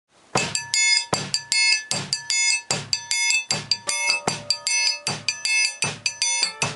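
Drum kit playing a steady, driving beat that starts about a third of a second in, with sharp regular strokes and ringing overtones.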